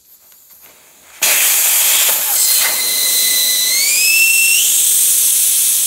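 Air rushing out of a sport bike's front tire through its valve as the tire is deflated for a tire change: a loud, steady hiss that starts about a second in, with a thin whistle in it that steps up in pitch partway through.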